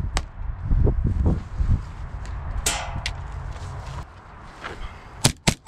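Airsoft gunfire in a skirmish: heavy low thumps and rustling of movement, a short swish about two and a half seconds in, then two sharp shots in quick succession near the end.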